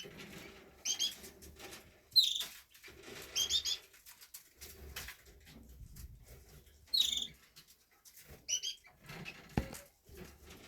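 Caged canaries giving short, high chirps, about six in all, the loudest a little after two seconds in. Soft wing-flutter and perch-rustling runs between the chirps, with a light thump near the end.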